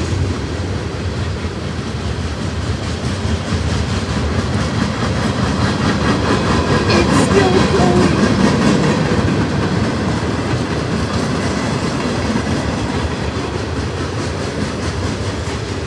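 Freight train of covered hoppers and boxcars rolling past close by: a steady rumble and clatter of steel wheels on the rails, swelling slightly about halfway through.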